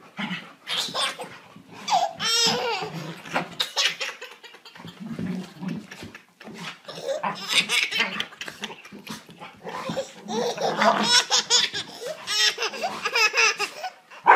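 Baby laughing hysterically in repeated fits of high, quavering giggles and belly laughs, with short breaths between them.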